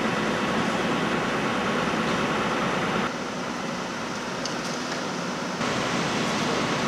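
Steady hum and noise of idling emergency vehicles' engines. It drops in level about three seconds in and comes back up near the end as the shots cut.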